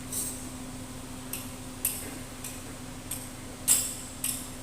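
Light, sharp metallic clicks, about seven at uneven intervals of roughly half a second, the loudest a little before the end, over a steady low hum.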